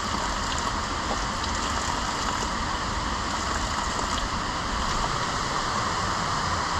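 Spring water running steadily out of a rock face: a constant, even rush of water with no breaks.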